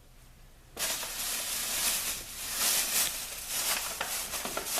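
Packaging rustling and crinkling as items are handled, starting suddenly about a second in and going on unevenly.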